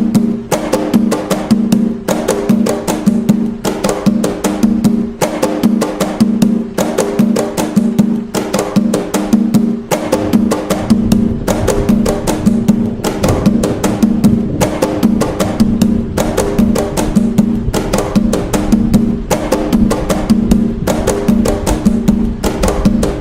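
Atabaque hand drums playing the toque nagô rhythm of Umbanda: a steady, fast run of hand strokes over a ringing low drum tone that pulses in an even repeating pattern.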